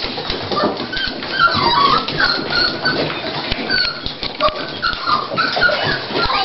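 Toy Pinscher whelping: high-pitched squeaking whimpers, many short calls in quick succession, over soft rustling and clicking against a blanket.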